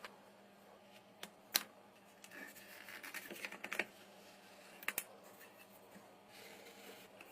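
Small hard clicks and taps, with a stretch of light scratching or scraping in the middle, as small parts are handled and worked by hand.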